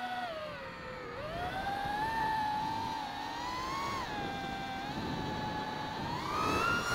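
iFlight Titan XL5 HD 6S FPV quadcopter's motors and propellers whining, the pitch rising and falling with the throttle: it dips about a second in, rises, drops again midway and climbs sharply near the end.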